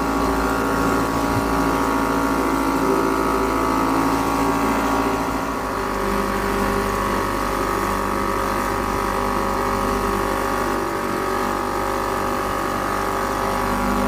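Antique British Seagull two-stroke outboard motor running steadily, with a slight shift in its pitch about six seconds in.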